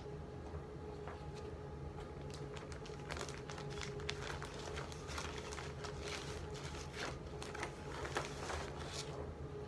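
Thin clear plastic sleeve crinkling and crackling as it is handled and pulled open. The crackles thicken from about three seconds in.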